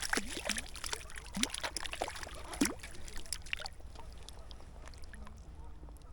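Water splashing and trickling with scattered sharp clicks and knocks, busy for about three and a half seconds, then dying down to a faint steady water sound.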